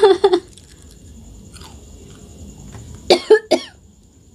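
A woman coughing while eating a raw green chilli, as the chilli's heat catches her throat: a few coughs at the start, then three sharp coughs about three seconds in.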